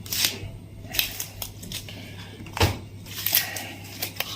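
Foot joints cracking as a chiropractor adjusts the tarsal bones: a series of sharp pops and clicks, the loudest about two and a half seconds in.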